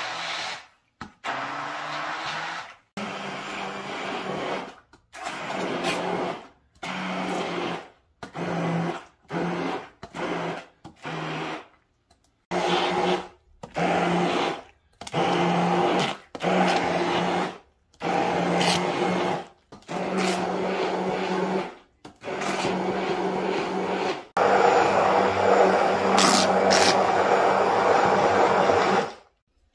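Breville immersion blender grinding mung beans into batter in a stainless steel bowl, switched on and off in many short pulses of about a second each with a steady motor hum. Near the end it runs for several seconds without stopping.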